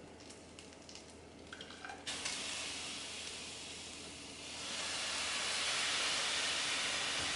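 Boiling water ladled into a very hot pan of toasted arborio rice, hissing and sizzling hard with steam. The hiss starts suddenly about two seconds in and grows louder toward the end, a screaming sizzle.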